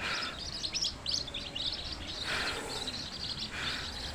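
Several small birds chirping and twittering in quick, overlapping high calls, with a few short rustling bursts mixed in.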